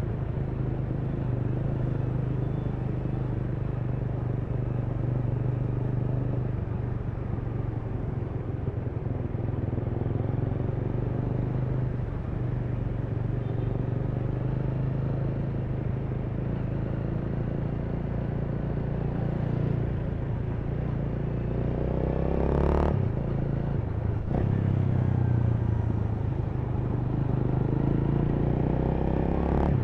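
Honda Rebel 300's single-cylinder engine running steadily while riding. Its note breaks briefly twice, around 23 and 24 seconds in, then runs on a little louder.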